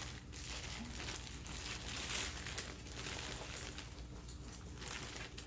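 Clear plastic fish-shipping bag crinkling and rustling as hands lift and handle it among the packing, in a run of irregular rustles.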